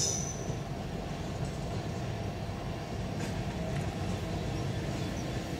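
Empty bogie timber wagons of a freight train rolling past, a steady low rumble of wheels on rail. A brief high wheel squeal comes at the very start, and a faint click about three seconds in.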